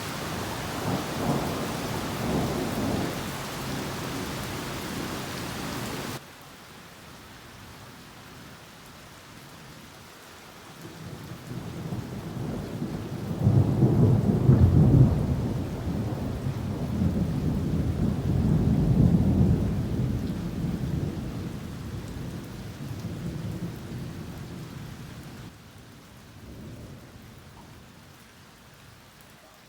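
Heavy rain pouring steadily, which drops suddenly in level about six seconds in. About a third of the way through, a long rolling peal of thunder builds, is loudest for a couple of seconds, then rumbles on and slowly fades out over the continuing rain.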